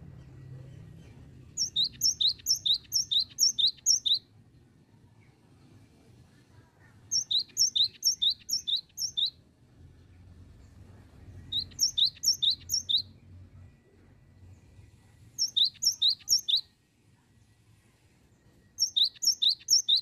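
Cinereous tit singing in five bursts of a high two-note phrase, repeated about four times a second. Each burst lasts one to three seconds, with short pauses between them.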